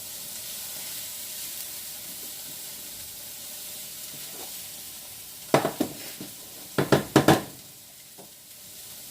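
Onions, garlic and green beans sizzling steadily in oil in a frying pan as they brown. A utensil knocks against the pan in two quick clusters past the middle.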